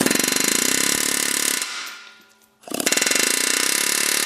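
Pneumatic air hammer chattering in two runs as its chisel cuts a notch into a stripped hex-head bolt: the first run dies away and stops about two seconds in, and the hammer starts again just under three seconds in.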